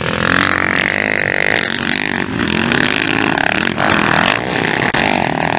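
Motocross dirt bikes racing past at full throttle. The engines rev hard, their pitch rising and falling with throttle and gear changes.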